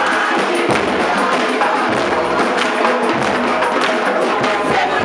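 Batucada: a group of drums and hand percussion playing a rhythm together, with low drum strokes and jingling percussion.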